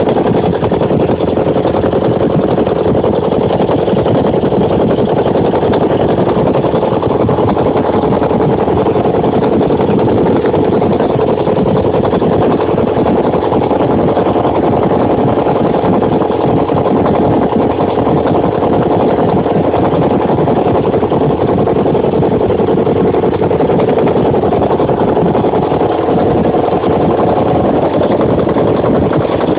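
Ural motorcycle's flat-twin engine running steadily and evenly, freshly rebuilt with a new crankshaft, camshaft, timing gears, main bearings and pistons in rebored cylinders, on its first run after the overhaul.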